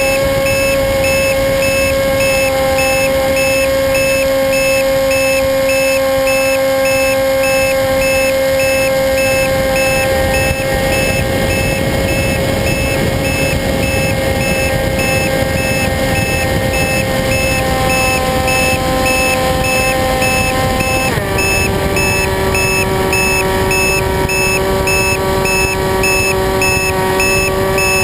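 Radio-controlled model airplane's motor and propeller running at a steady high-pitched drone, with a rushing noise behind it. About 21 seconds in the pitch drops a step and holds lower, as the throttle is eased back.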